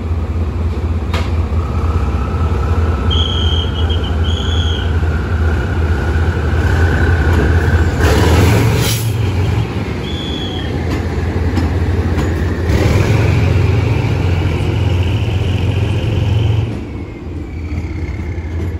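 Diesel locomotive running with a steady low rumble and a slowly rising whine. Short high peeps come twice a few seconds in and once more about ten seconds in, and a brief burst of hiss comes about eight seconds in.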